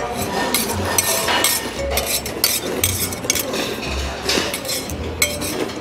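Metal chopsticks and a spoon clinking and scraping against a stainless steel plate while eating, a run of many short clicks.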